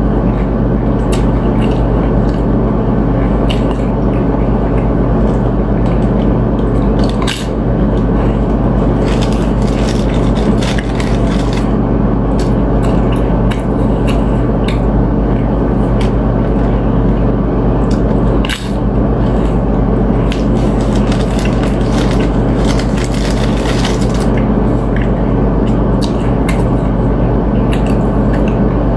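Close-miked eating: crunching of chips and chewing, with scrapes and clicks of a utensil on a plate, over a steady low hum.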